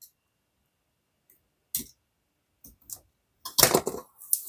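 Clicks and clatter of small hard objects being handled on a workbench: a few separate clicks, then a louder burst of rattling clicks about three and a half seconds in.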